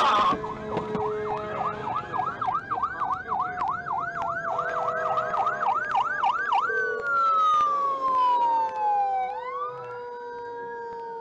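Ambulance siren heard from inside a car: a fast yelp, about three sweeps a second. About six and a half seconds in it changes to a slow wail, falling and then rising again.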